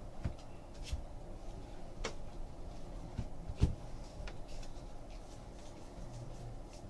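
Trading cards being handled on a table: a few light taps and clicks as cards are flipped and set down, the loudest a little past the middle.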